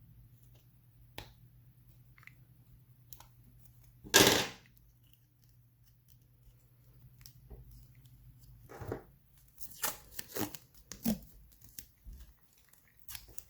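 Adhesive tape being trimmed off: one loud, half-second rip about four seconds in, then a run of small crinkling and handling noises near the end as the tape is pressed and worked.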